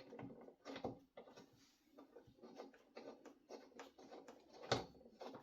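Faint small clicks and scrapes of a spark plug being fitted into an Echo PB-250LN leaf blower's engine, with one louder knock near the end.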